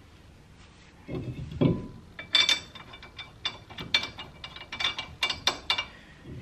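A couple of dull knocks as a slotted brake rotor is seated on the wheel hub. Then a quick, irregular run of metallic clicks and taps with a faint ring, as lug nuts are spun by hand onto the wheel studs to hold the rotor in place.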